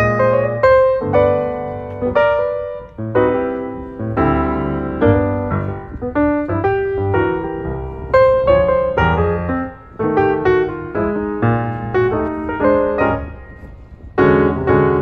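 Background piano music: a melody of struck notes that ring and fade, with a brief lull a little before the end.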